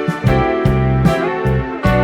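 Instrumental background music with a low bass line and a run of changing notes.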